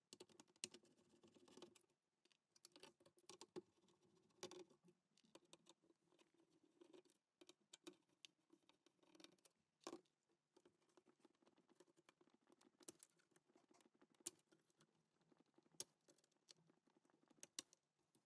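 Faint, irregular clicks and taps of a screwdriver undoing screws and of hands handling a power supply circuit board and its wiring.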